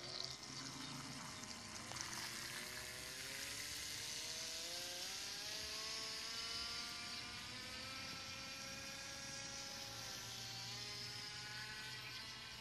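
Electric motor of a Buddy Toys FT007 radio-controlled speedboat running at speed, a thin high whine that rises in pitch over the first several seconds as the boat pulls away, dips briefly near the end and climbs again, over a steady hiss.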